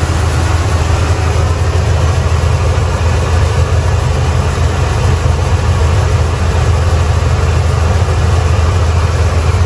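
Coin-operated rice polishing machine running, its motor and mill giving a loud, steady low hum while unpolished rice drains from the hopper into the mill.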